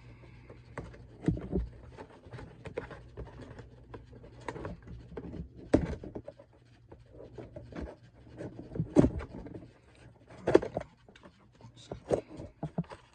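Action figure's cardboard box and plastic tray being handled and opened by hand: irregular crinkles, clicks and light knocks, with a few sharper knocks scattered through.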